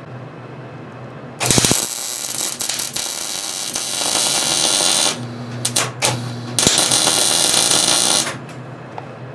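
MIG welder arc crackling as a steel cross tube is welded onto a hydraulic cylinder's end: one bead starting about a second and a half in and running for nearly four seconds, a few short sputters, then a second, shorter bead that stops about a second before the end. A low hum is heard in the pause between the beads.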